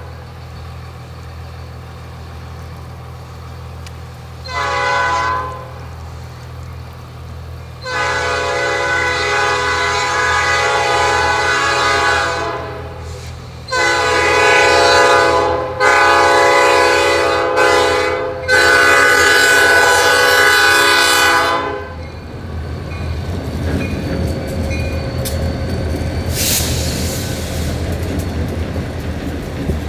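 Freight diesel locomotive horn blowing for a grade crossing: a short toot about four seconds in, then long blasts from about eight to twenty-two seconds. After that the locomotive comes through the crossing with a steady rumble of its diesel engine and wheels on the rails.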